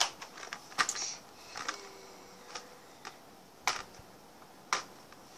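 A cardboard box of colouring supplies handled by hand on a tiled floor: sharp, irregular clicks and knocks, about seven in five seconds.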